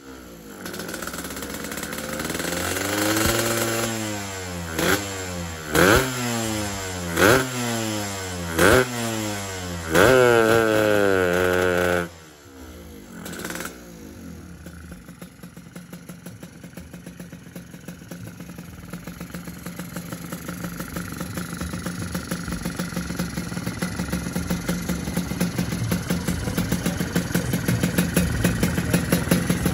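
Yamaha RX King two-stroke single-cylinder engine on a PWK 33 carburettor being revved: several quick throttle blips that rise and fall in pitch, a held high rev about ten seconds in, then a sudden drop to a steady, pulsing idle for the rest. The carburettor setup is meant to top out on its own at high revs.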